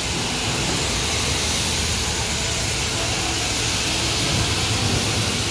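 High-pressure car-wash wand spraying water onto a foam-covered car, a steady hiss of the jet hitting the bodywork.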